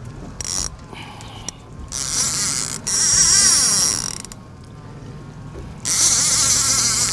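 Casting reel's drag giving line in several bursts, a high hissing whine, as a hooked greater amberjack runs against the bent rod.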